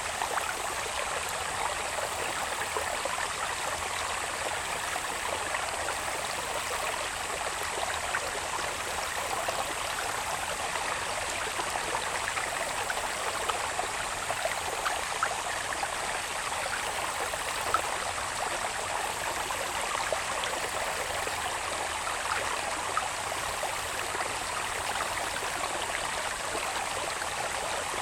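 Shallow water babbling and trickling steadily along a small channel that drains from the hills into the fields, with many tiny splashes. A thin, steady high-pitched insect chorus from the grass runs under it.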